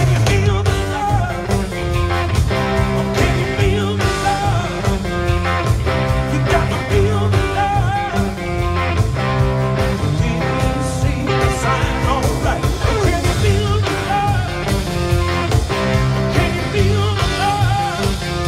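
Live blues-rock band playing loud amplified music, with electric guitars, drum kit and a sung vocal, heard through the stage PA.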